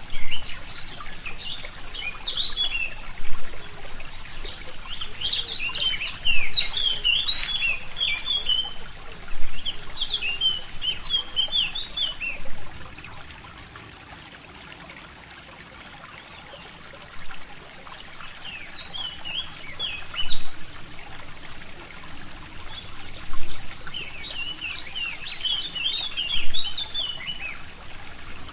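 A forest stream trickling steadily, with songbirds singing in bursts of quick, high chirping phrases; the birds fall quiet for a few seconds around the middle.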